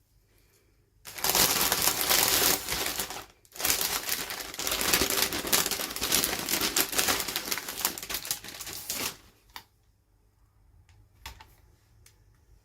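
Plastic toy packaging being crinkled and handled in two long stretches of dense crackling, with a brief pause between them, followed by a few faint clicks.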